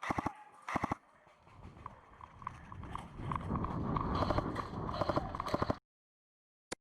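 Two short full-auto bursts of airsoft gunfire, each a rapid string of clicks, then running footsteps with gear rustling that build up over about four seconds and cut off suddenly near the end.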